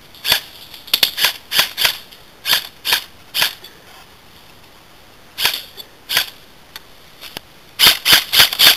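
Airsoft guns firing single shots, a dozen or more sharp cracks: an uneven string in the first few seconds, two more about halfway, and a quick run of five near the end as the rifle is brought up over the barricade.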